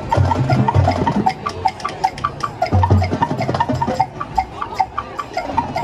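High school marching band playing its field show: a run of quick, short mallet-percussion notes over repeated held low bass notes.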